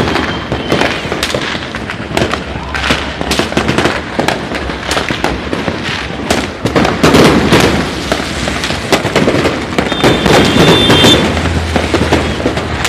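Fireworks going off in a dense, unbroken run of bangs and crackles, with louder flurries about seven and ten seconds in.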